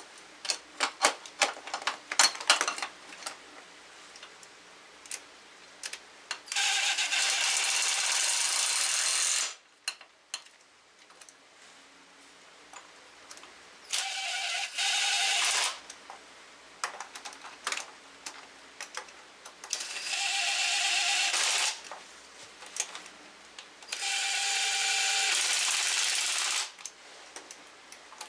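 Cordless drill-driver running intake manifold bolts in, four steady runs of a few seconds each with a constant motor whine. Light clicks and rattles of bolts and sockets being handled come in the first few seconds.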